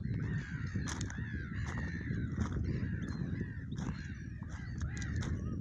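Gulls calling, short harsh arched cries repeating several times a second and overlapping, over a low steady rumble.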